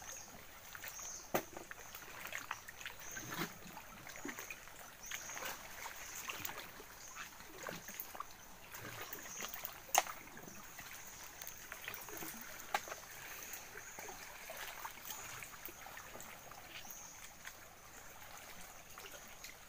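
Gentle water lapping and trickling around a person wading in shallow water, with scattered light ticks and a faint steady high-pitched hum.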